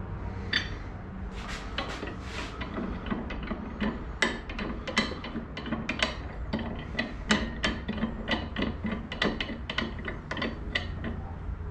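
Irregular light clicks and rattles, several a second, from the stainless steel parts of a Mul T Bar rod holder being handled and fitted together by hand.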